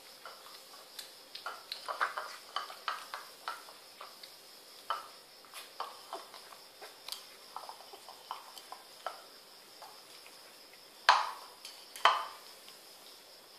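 Kittens eating from a ceramic bowl on a tiled floor: irregular small clinks and taps as the bowl is nudged and knocked on the tiles, with two louder knocks near the end.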